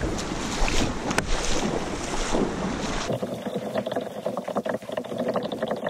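Wading footsteps splashing through shallow creek water, with wind rumbling on the microphone. About three seconds in the sound changes abruptly to water rippling along a kayak hull as it is pulled through the shallows, with splashing steps further off.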